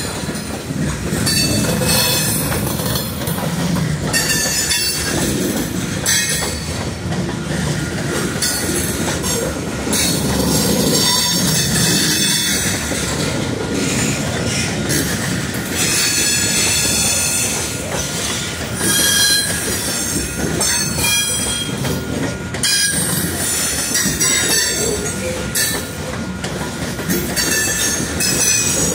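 Freight train of covered hopper cars rolling past with a steady rumble and clatter of steel wheels on rail, and high-pitched wheel squeal that comes and goes many times.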